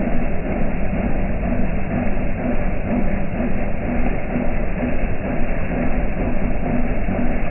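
Rain falling steadily: a continuous, even rush of noise with a low rumble beneath it.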